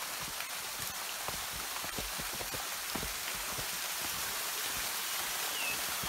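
Small waterfall pouring into a rocky pool: a steady rush of falling and splashing water.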